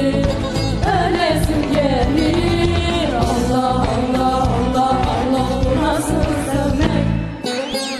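A Turkish song medley sung live by a small vocal group, voices in harmony over a steady low backing. Near the end the backing drops out briefly before the song comes back in.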